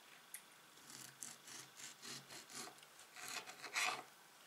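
Kitchen knife sawing through a tomato held over a wooden cutting board: a run of faint, quick scraping strokes, several a second, growing louder near the end.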